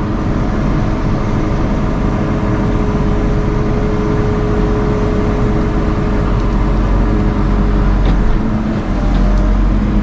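JCB 3CX Stage V backhoe loader's four-cylinder diesel engine running steadily at working revs, heard from inside the cab, with a steady hydraulic whine as the backhoe arm is worked on the joysticks. The whine fades out about eight seconds in.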